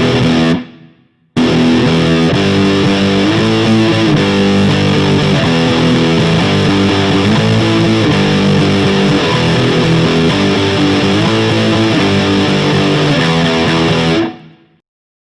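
Rocket Stratocaster-style electric guitar played through distortion. A short chord cuts off almost at once, and after a gap of about a second comes a continuous stretch of changing riffs and chords, which stops about a second before the end.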